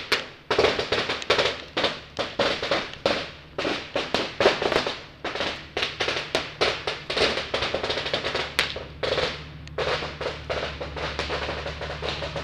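Background heavy rock music with fast, hard-hit drums over a steady bass line.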